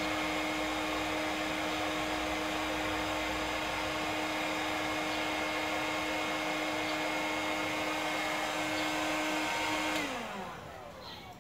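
Electric heat gun running with a steady fan hum and rush of air, switched off about ten seconds in, its motor winding down with a falling pitch.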